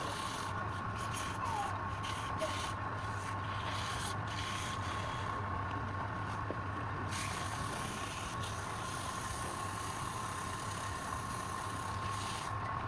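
Woodturning lathe running steadily, a constant machine noise with a steady high whine and a low hum.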